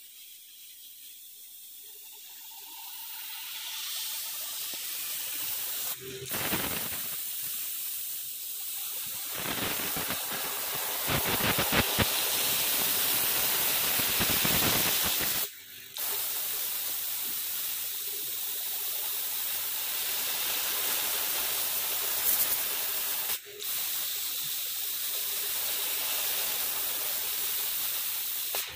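CO2 laser cutter cutting a wooden sheet: a steady hiss of air-assist air blowing from the cutting-head nozzle. The hiss is quieter for the first few seconds and breaks off briefly three times.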